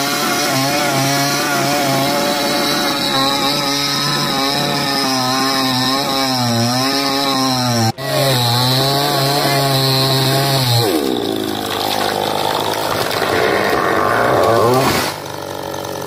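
Petrol chainsaw running hard while cutting through a tree trunk, its engine note dipping and recovering as the chain bogs in the wood. About eleven seconds in the steady note gives way to a rougher, noisier sound, and the level drops near the end.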